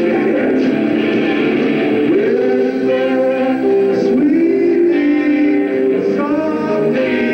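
Live rock band playing: electric guitars and drums, with a singer's voice over them.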